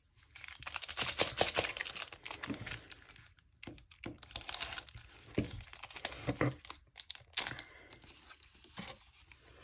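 The foil wrapper of a trading-card pack being torn open and crinkled in several bursts of crackling and tearing.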